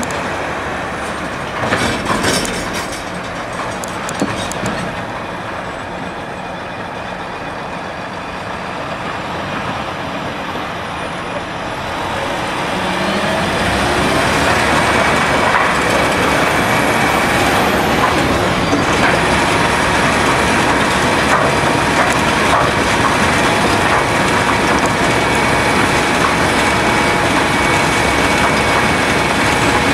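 Heavy diesel machinery running: an articulated dump truck idles and pulls into place, with a few short sharp clicks about two seconds in. About 13 seconds in a road cold-milling machine starts grinding up the road surface and loading the broken asphalt onto its conveyor, a louder, steady grinding rumble that holds to the end.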